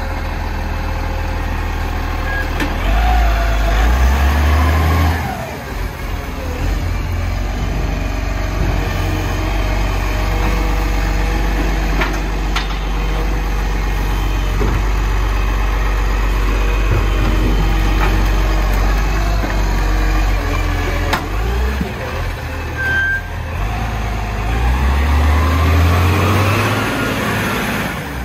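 Garbage truck engine idling, revving up twice for a couple of seconds each, about three seconds in and again near the end. A few sharp knocks are heard in between.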